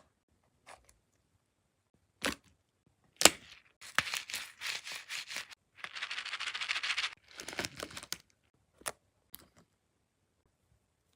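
Crafting handling sounds: sharp knocks and clicks, crinkly rustling, and about six seconds in a second-long rapid rippling rasp like adhesive tape pulled off a roll and torn.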